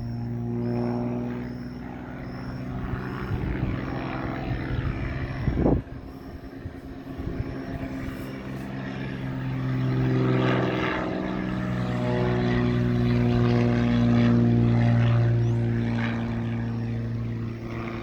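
Propeller engine of an agricultural airplane on a fertilizer-spreading run, a steady drone that swells louder twice as the plane comes past, about halfway through and again near the end. A short sharp bump comes about six seconds in.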